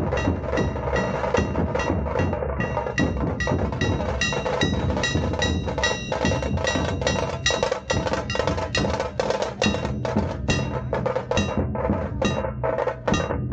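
A group of Maharashtrian dhol drums played together in a fast, steady rhythm of sharp strokes, with a high ringing tone held above the beats.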